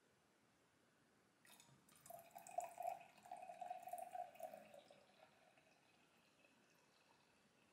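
Light beer poured from a glass bottle into a glass: faint splashing and gurgling for about three seconds, after a brief click.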